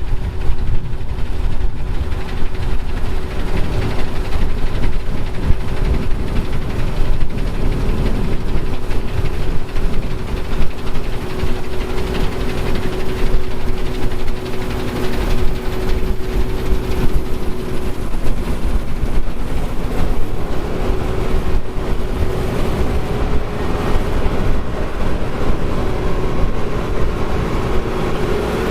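John Deere 2140 tractor's three-cylinder diesel engine running steadily, with a heavy low rumble and a constant hum.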